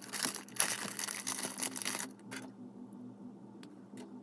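Plastic rustling with many small clicks for about two seconds, then a few soft clicks: Lego pieces and their packaging being handled.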